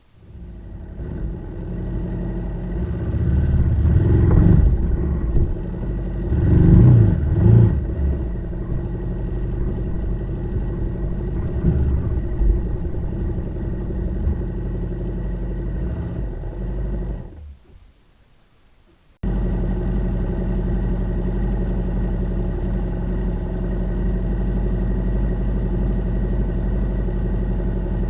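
A vehicle engine runs and is revved twice, about four and seven seconds in, then settles to a steady run. Near the end it drops away for a moment, then steady idling comes back abruptly.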